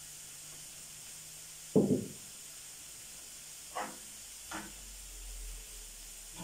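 Chopped onions with garlic and green pepper frying gently in oil and ghee in a frying pan, with a soft steady sizzle. A spoon knocks against the pan once, loudly, a little under two seconds in, then clinks against it three more times as the onions are stirred.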